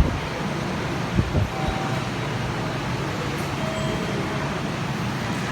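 Steady running noise inside a Shinkansen bullet train car at speed, an even rushing hum, with a couple of brief low knocks a little over a second in.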